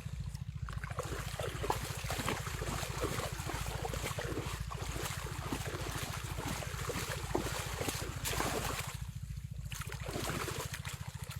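Outdoor water noise with a steady, pulsing low rumble of wind on the microphone and irregular splashing.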